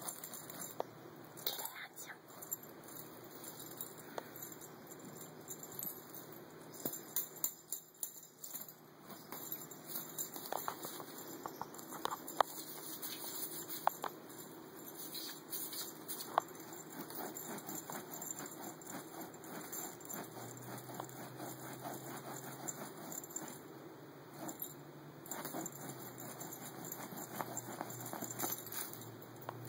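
A feather wand toy flicked over carpet and tile while a cat bats at it: scattered light taps and rustles.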